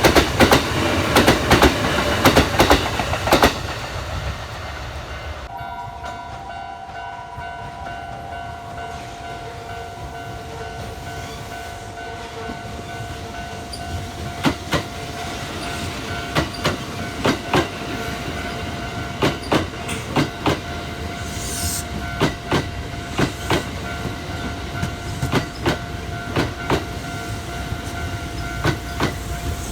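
Kintetsu trains on the track: the wheels of a close passing train clack over rail joints, dying away after about three and a half seconds. Steady tones then hold, and another train's wheels clack over the joints in pairs, more and more often toward the end.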